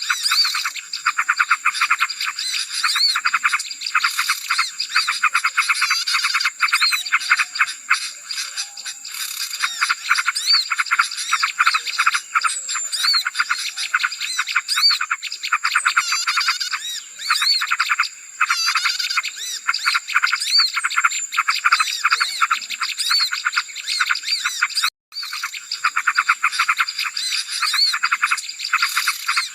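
Dense chorus of many small birds chirping and chattering at once, a bird-lure recording made to call in small birds. The rapid, overlapping calls run without a pause except for a split-second gap near the end.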